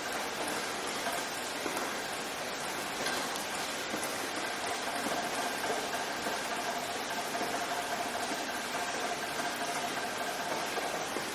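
Steady rain, an even hiss without distinct drops, with a faint steady hum underneath.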